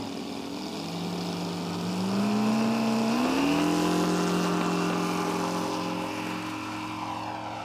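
O.S. FR7-420 seven-cylinder four-stroke radial engine on a radio-controlled scale model plane, opened up to takeoff power. Its note rises in pitch in two steps, then holds steady at full throttle and fades a little near the end as the plane moves away.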